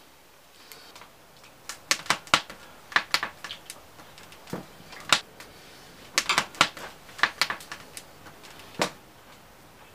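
Irregular sharp clicks and knocks, coming in two quick clusters about two and six seconds in, with a few single knocks between and after.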